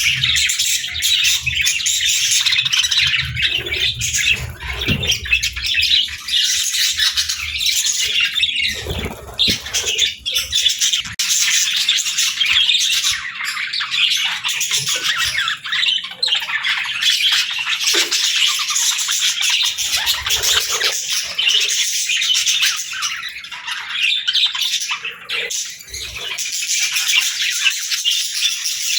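Budgerigars chattering and chirping without a break, a dense high-pitched twitter of several birds at once, with occasional squawks.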